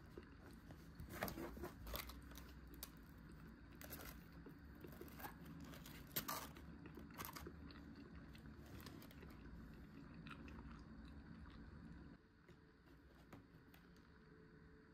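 A person chewing and biting crunchy deep-fried shrimp, with scattered crisp crunches, several louder ones in the first half.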